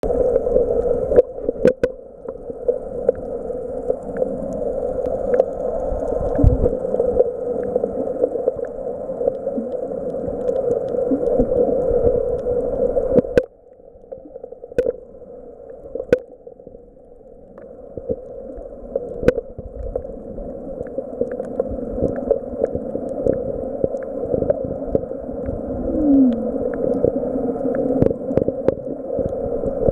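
Muffled underwater water noise picked up by a camera submerged while snorkeling: a steady low rush with scattered sharp clicks. It drops off suddenly to much quieter a little before halfway and builds back up a few seconds later.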